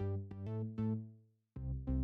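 Background music: an electronic track of synthesizer notes in a quick, even rhythm, which breaks off briefly about one and a half seconds in before starting again.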